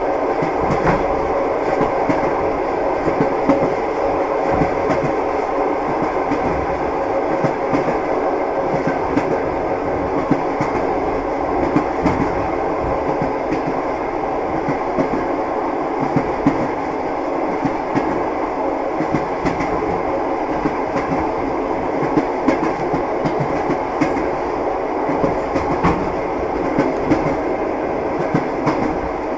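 Moving train's wheels clattering over the rails: a steady rumble with frequent short knocks.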